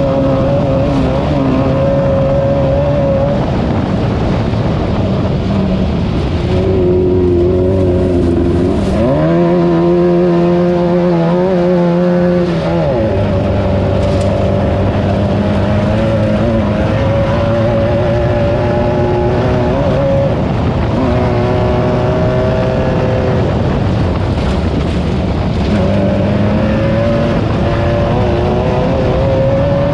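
Class 9 off-road race car's engine running hard under load, its pitch rising and falling repeatedly as the revs change, over a steady rush of noise. About nine seconds in the revs climb to a steadier note for a few seconds, then drop again.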